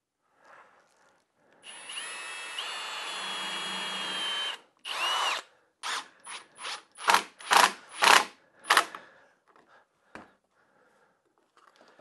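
Cordless drill boring a screw hole through a plywood block: a steady motor whine for about three seconds, then a brief second run. Then a cordless driver sets a screw in a quick string of about eight short trigger bursts that get louder as the screw goes in.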